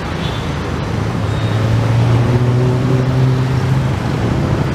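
Diesel locomotive hauling a passenger train as it approaches. Its engine is a steady low drone that swells into a strong, steady note from about two to four seconds in.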